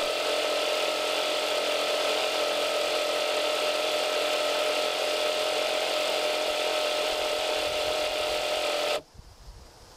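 A 775 DC motor driving a 3D-printed external gear pump on thick motor oil, running with a steady whine. It cuts off suddenly near the end, leaving only faint background noise.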